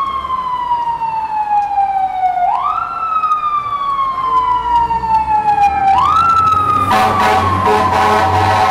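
Emergency vehicle siren wailing, each cycle rising quickly and then falling slowly over about three and a half seconds. About seven seconds in, a harsher many-toned blare and a heavy engine rumble take over as a fire department ladder truck passes close by.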